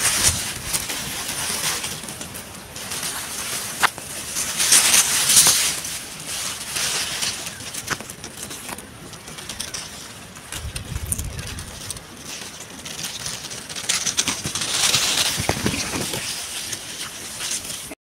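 Grass blades and leaves rustling and brushing against a handheld camera as it is pushed through dense vegetation, in uneven swells with a few handling knocks.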